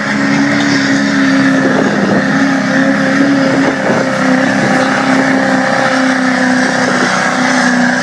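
Duramax turbo-diesel V8 of a pickup held at steady high revs under heavy load as it drags the weight sled, its pitch nearly constant with a few slight steps.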